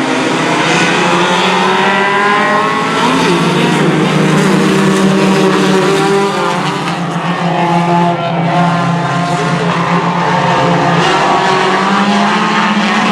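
A pack of four-cylinder race cars running flat out around a short oval. Several engine notes overlap and rise and fall in pitch as the cars pass and lift for the turns.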